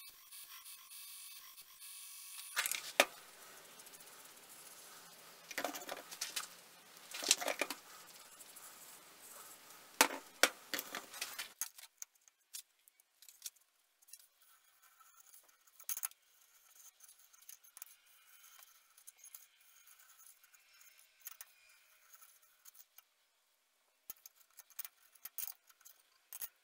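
Small steel hand tools handled on a workbench: light clicks and clinks with a few short scrapes in the first half, then only sparse faint clicks as a dial height gauge is worked on a granite surface plate.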